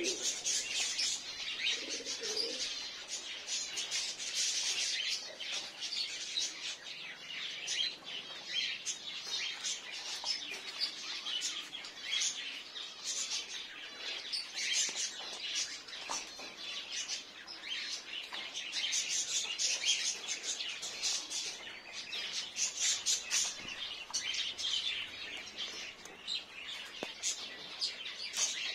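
Caged domestic pigeons: a low pigeon coo in about the first two seconds, over dense high-pitched chirping from birds that goes on all the while.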